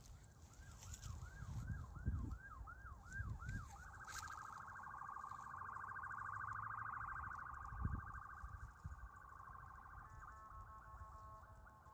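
Faint electronic car alarm cycling through its tones. It starts as a fast run of rising-and-falling chirps, about three a second, turns into a steady warble about four seconds in, and switches to a choppy on-off tone pattern near the end. A few soft low thumps sound underneath.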